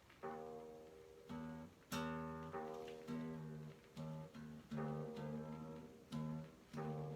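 Guitar music: single notes plucked one after another, about two a second, each ringing and dying away.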